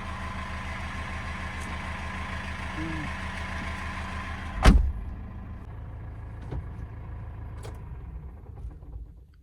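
GAZelle Next van's engine idling with a steady low throb. About halfway through, a door slams shut once, loudly, after which the engine is quieter and muffled.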